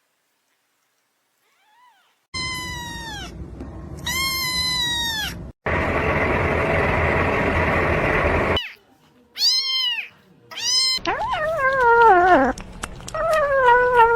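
Kitten meowing about five times after a couple of seconds of quiet, each meow falling in pitch. Between the second and third meows there are about three seconds of loud, noisy sound.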